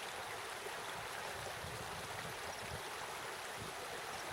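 Mountain stream running water, a steady even rush.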